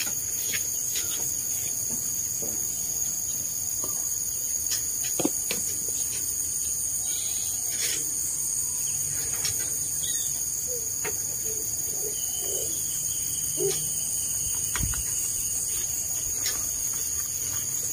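Steady high-pitched chorus of insects such as crickets, with scattered faint clicks and knocks.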